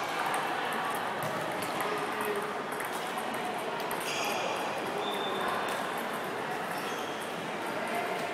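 Table tennis balls clicking off bats and tables in quick, irregular knocks, as several tables rally at once. The clicks sit over a steady background hubbub.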